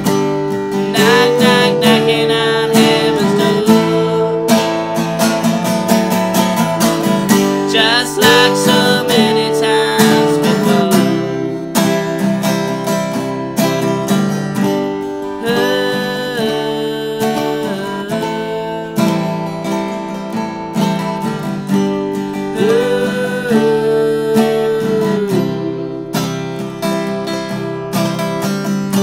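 Acoustic guitar strummed steadily, with four long sung phrases over it, one about every seven seconds.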